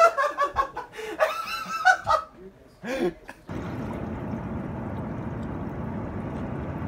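Men's voices laughing and exclaiming, then a short pitched cry about three seconds in. After a sudden cut comes a steady outdoor rushing noise.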